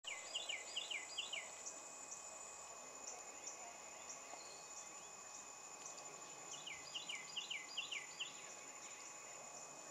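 A steady high insect drone runs throughout. Over it come two short bouts of a bird's repeated down-slurred whistles, each lasting about a second and a half: one near the start and one about two-thirds of the way through.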